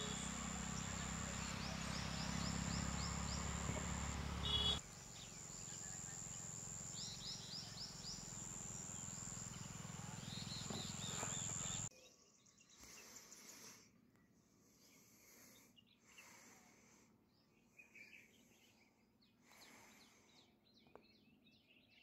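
Outdoor woodland ambience: a steady high-pitched drone, repeated short falling bird chirps and a low rumble, with a louder call about four and a half seconds in. All of this cuts off abruptly about twelve seconds in, leaving faint intermittent whooshes and occasional bird calls.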